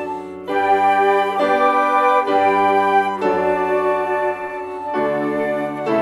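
Flute ensemble playing a slow chorale in sustained chords, the chord changing about once a second, with a short break for breath about half a second in.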